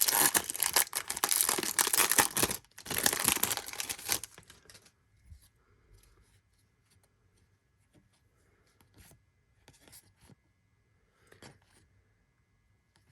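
Wrapper of a Topps Series 2 baseball card hobby pack being torn open and crinkled for about four seconds, with a brief pause partway through. After that only faint, scattered light ticks.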